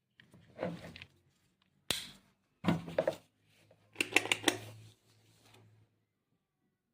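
Handling noises from unboxing a rotary hammer: sharp clicks, knocks and rustling in four short bursts, the busiest with several quick clicks about four seconds in, followed by a faint low hum.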